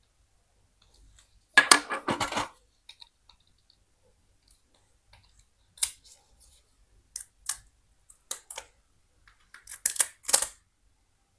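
Clicks and clatter from the small parts of a disassembled phone being handled: a quick cluster of clicks about two seconds in, then single sharp clicks every second or so, two close together near the end.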